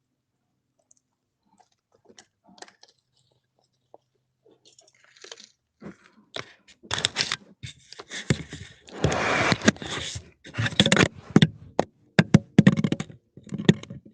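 A bear biting and clawing at a Nest doorbell camera, picked up by the camera's own microphone: faint scratches and clicks at first, then loud, close crunching and scraping from about six seconds in.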